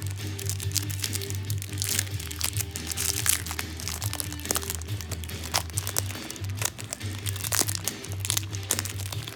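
Plastic packaging of a CD single crinkling and crackling in irregular clicks as it is handled and unwrapped, over music with a steady low bass.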